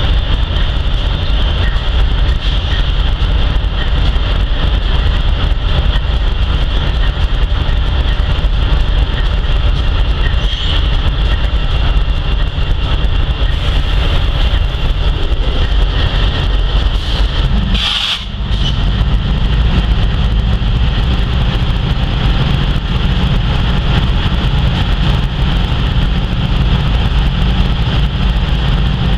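Freight train with diesel locomotives rolling past with a steady loud low rumble and a steady high whine over it. A brief sharp sound comes about eighteen seconds in.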